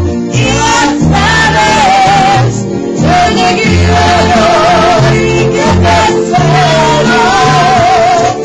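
A woman singing a ranchera-style song into a handheld microphone, holding long notes with a wide, wavering vibrato, over accompanying music with a steady bass line.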